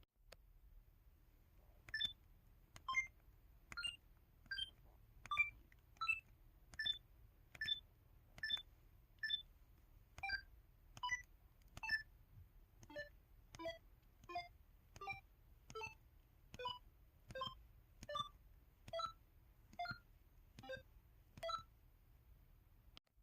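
KTF-TR2000 mobile phone's 'Elec' (electronic) keypad tone set: about two dozen short electronic beeps, one per key press, each at a different pitch and a bit under a second apart.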